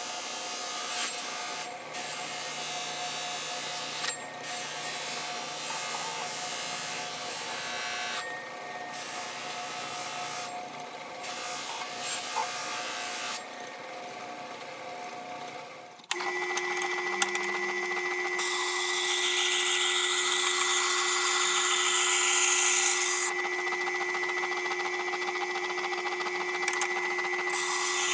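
Steel saw-blade edge held against a wheel turning on an electric motor, a steady rubbing grind. About sixteen seconds in it switches to a louder grind with a strong hiss over a steady motor hum, as the blade is worked on a wet-wheel sharpening machine.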